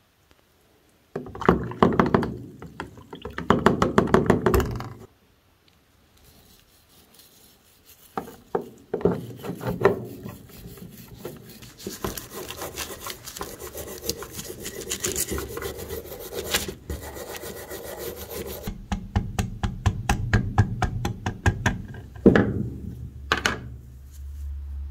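Plastic bag crinkling and rubbing as gloved hands scrub the black sludge left by electrolysis rust removal off an old revolver inside the bag, in repeated bouts of scraping. Near the end there are a couple of sharp knocks.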